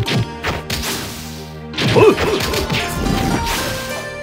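Combat sound effects, with strikes and crashes over dramatic background music. A loud hit lands about two seconds in, and held music tones follow it.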